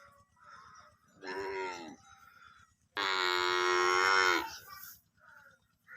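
Water buffalo calf bawling twice: a short call that drops in pitch about a second in, then a louder, longer, steadier call about three seconds in.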